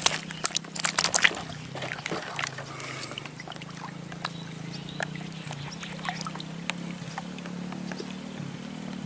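Water splashing and dripping around a person wading almost neck-deep in a river, busiest in the first second and a half, then occasional small drips. A steady low engine drone runs underneath.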